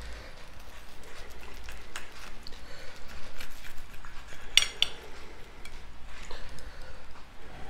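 Knife and fork cutting into a crepe pizza on a plate: light scraping and small clicks of metal on the plate, with one sharp, ringing clink about four and a half seconds in.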